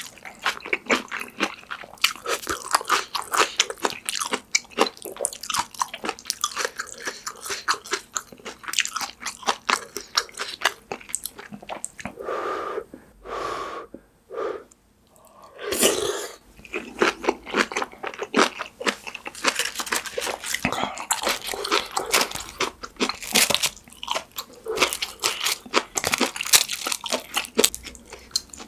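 Close-miked eating of kimchi stew with ramen noodles: wet, crunchy chewing and smacking mouth sounds. There is a short lull with a few breathy puffs about halfway through.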